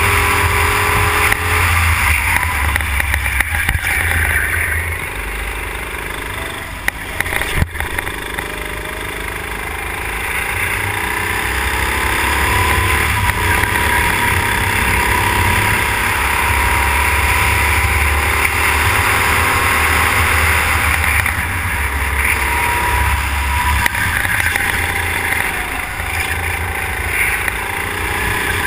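Go-kart engine heard from on board under racing load, easing off and dropping in pitch for a corner about five seconds in, then climbing again as it accelerates out and holds high revs. A few sharp knocks come around seven seconds in.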